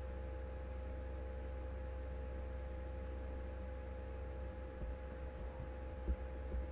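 Steady electrical hum, a low drone with a thin steady tone above it, as in a recording setup's background noise; a few faint low bumps come in the last couple of seconds.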